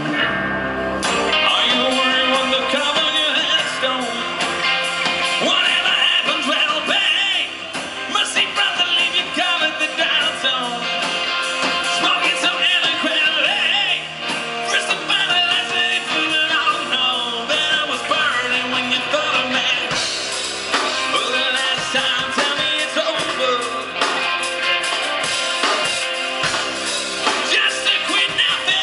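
Live rock band playing with electric guitar, drums and a singing voice, fuller and brighter from about twenty seconds in.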